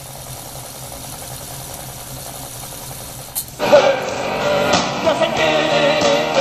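Becker Mexico Cassette car radio's playback: a click, then a few seconds of low hiss while the tape keys are worked. About three and a half seconds in, another click and music comes back loud through the set's speaker.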